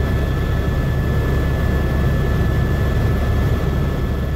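Tour helicopter in flight heard from inside the cabin: a steady, loud low drone of rotor and engine with a thin steady whine above it, starting to fade at the very end.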